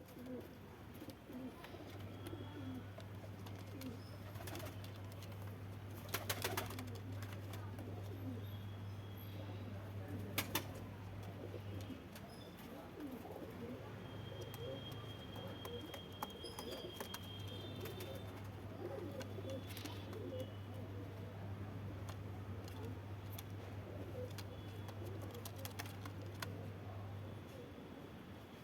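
Black Saharanpuri pigeons cooing, with a few sharp clicks and a low steady hum underneath for long stretches.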